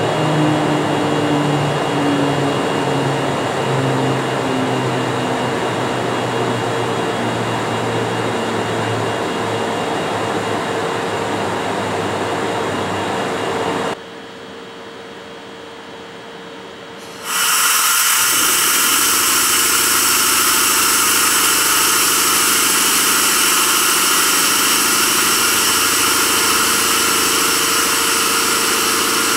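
Double-headed EF64 electric locomotives on an oil tank freight train slowing as they pull in, their running hum falling steadily in pitch. After a short quieter stretch about halfway through, a standing locomotive's equipment runs with a steady whirring hiss.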